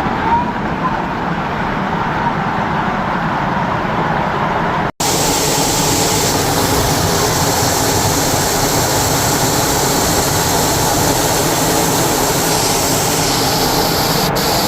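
Natural waterfall rushing steadily. About five seconds in the sound drops out for an instant and comes back hissier.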